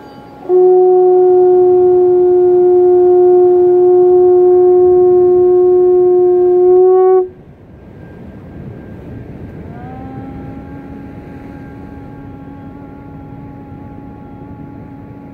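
A horn blown by mouth: one loud, steady note held for about seven seconds that cuts off abruptly. After a short pause comes a softer, lower note that slides up in pitch and then holds.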